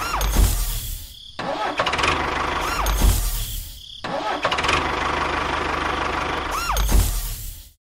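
Tractor engine sound effect starting up and running, the same clip repeated three times in a row with short dips between. Each time a pitch rises and then falls over heavy low rumble, and the sound cuts off suddenly near the end.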